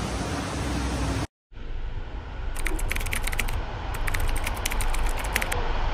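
Two runs of quick, light clicks, each lasting about a second, over a steady low rumble. The sound drops out briefly about a second in.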